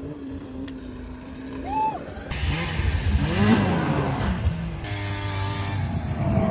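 A motor vehicle's engine revving, its pitch rising and falling, mixed with music.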